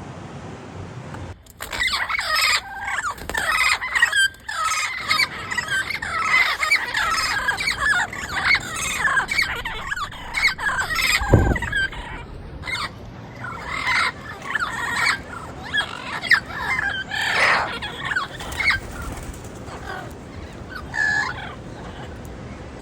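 Turquoise-fronted amazon parrots calling in the wild: a dense run of harsh squawks and shrieks that starts about a second and a half in and thins out near the end. A low thump about eleven seconds in.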